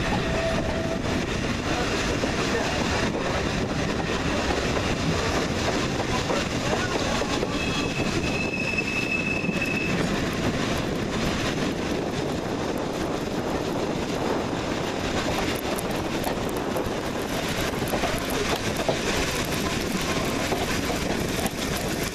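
Steam-hauled train on the move, heard from an open window of one of its passenger coaches: the steady run of the locomotive and the coach's wheels on the rails. There is a brief high tone about eight seconds in.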